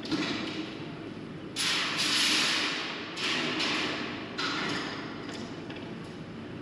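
Scraping and rustling as parts are handled at the wall of a corrugated steel grain bin, echoing inside the bin. There are three bursts, the loudest about one and a half seconds in.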